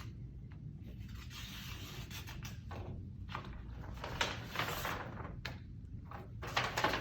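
Paper rustling and scraping as a sealed bid envelope is opened and the documents are drawn out, with a few short sharp crinkles and a louder rustle near the end.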